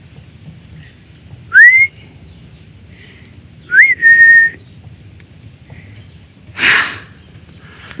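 Human whistling used as a lure: a short whistle rising in pitch about a second and a half in, then another near four seconds that rises and holds a steady note for about half a second. A short hiss follows near the end.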